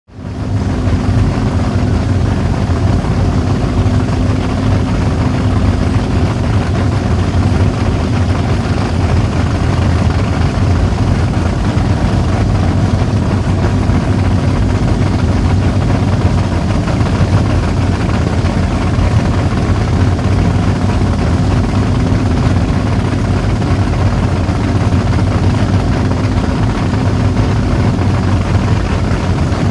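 Outerlimits performance catamaran's engines idling, a loud, low, steady running sound that does not change.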